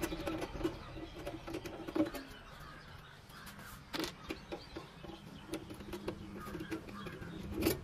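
Screws being taken out of an old amplifier's sheet-metal case with a screwdriver: a few light metallic clicks and taps, one of them about four seconds in and another near the end.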